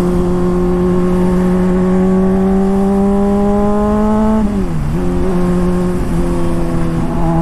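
Honda CBR600RR inline-four sport bike running through an aftermarket Toce exhaust, with a deep note. The pitch climbs slowly for about four seconds, dips sharply and comes back up, then holds steady.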